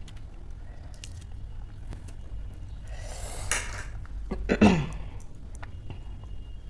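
A woman's short, sharp cough about four and a half seconds in, its voiced tail falling in pitch, just after a noisy breath. Faint clicks of fingers handling food come around it.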